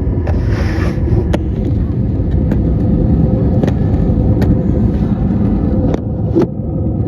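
Steady low rumble of a vehicle, with a short hiss about half a second in and several sharp clicks.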